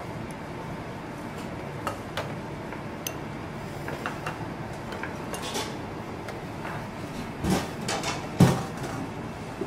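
Restaurant kitchen clatter: scattered clicks and clinks of utensils and dishes over steady background noise, with two louder knocks near the end.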